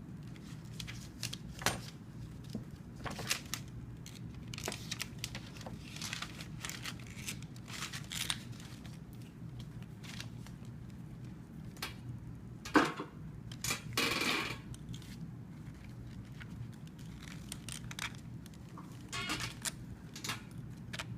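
Scattered small clicks, taps and rattles of metal parts and tools being handled while a throttle cable is reattached to a string trimmer's carburetor. There is a sharp click about 13 seconds in and a brief scraping rustle just after, over a low steady hum.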